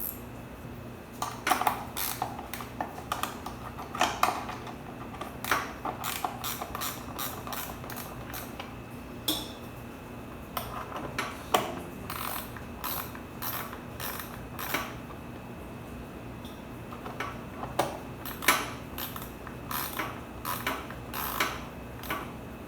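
Ratchet wrench clicking in short, irregular runs of strokes as it loosens a 10 mm bolt.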